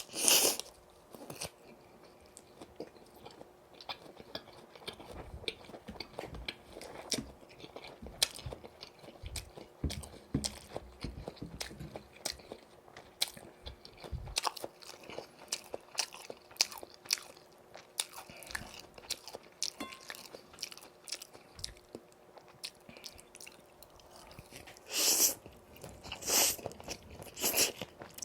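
Close-miked biting and chewing of crispy boneless yurinki fried chicken, a steady run of small crunches and crackles. There are loud crunchy bites at the start and twice near the end.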